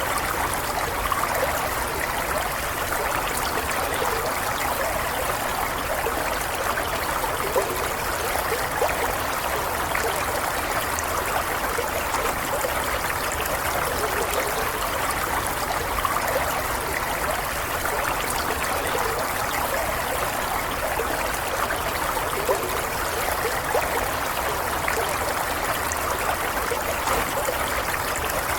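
A stream of water running and trickling steadily, without a break.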